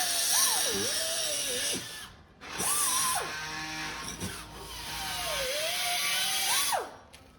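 Handheld electric power tool running on bodywork, its motor whine dipping and recovering as it is pressed into the metal. It stops briefly about two seconds in, starts again, and cuts off near the end.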